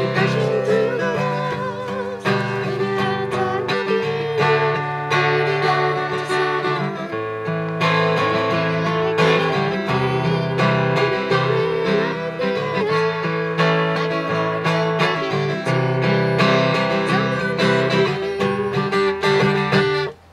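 Acoustic guitar played through an instrumental passage, strummed chords with picked melody notes over changing bass notes, stopping abruptly right at the end.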